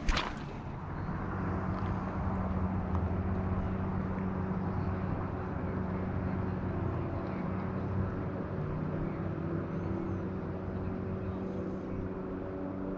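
A brief click right at the start, then a steady low engine hum over a constant outdoor hiss.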